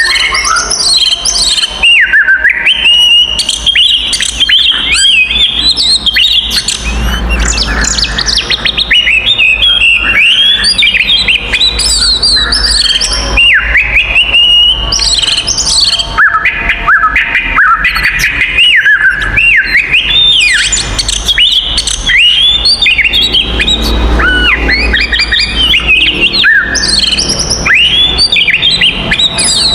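Oriental magpie-robin singing loud and unbroken: a rapid, varied run of whistles, chirps and swooping up-and-down notes, with no pauses. It is the fast, aggressive fighting song that keepers of these birds call gacor tarung.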